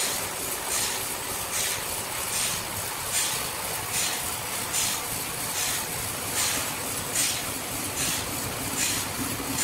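Horizontal band sawmill running and sawing a large squared timber, a steady machine noise with a hissing whoosh that repeats evenly a little more than once a second.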